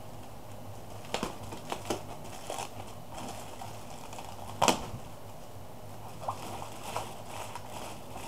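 A package being handled and unpacked by hand: scattered light knocks and rustling, with one sharper knock a little over four and a half seconds in.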